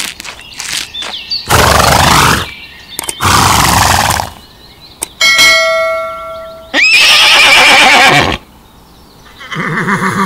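Horses neighing, several loud whinnies one after another, with a bell ringing briefly about halfway through.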